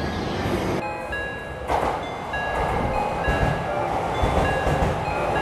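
Train running, a steady rumbling rattle of wheels and car body.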